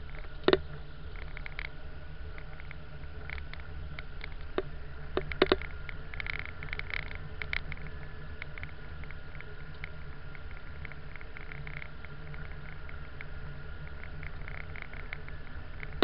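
Steady low rumble of a vehicle driving slowly on snow-packed pavement, heard from inside, with a faint steady whine. A sharp knock comes about half a second in, a few more knocks around five seconds, and short crackling after that.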